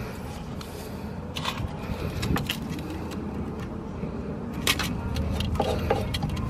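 A few light metallic clicks and rattles as a steel tape measure is handled and set against a coilover's threaded sleeve, over a steady low background rumble.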